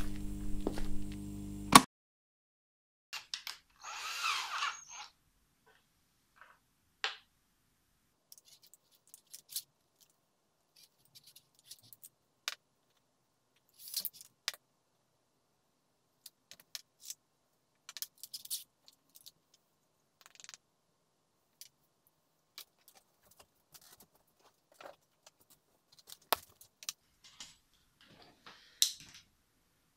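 Scattered light clicks and taps of small plastic parts and hand tools being handled on a work board, with a short noisy burst from a small handheld power tool about four seconds in.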